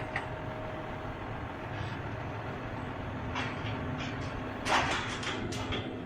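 A vehicle running steadily, with short metal rattles and clanks about three and a half and five seconds in.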